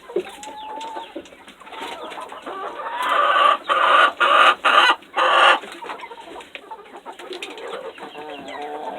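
A flock of chickens clucking and calling in a crowded coop, with a louder run of four harsh bursts about three to five and a half seconds in.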